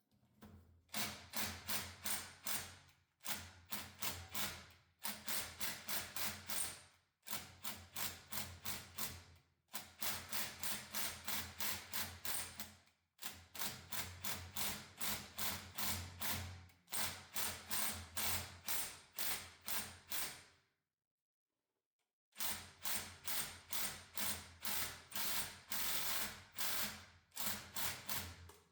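Hammer striking metal in quick repeated blows, about four a second, in runs of a few seconds with short pauses between them. The blows are driving at a stuck part in a backhoe's hydraulic control assembly.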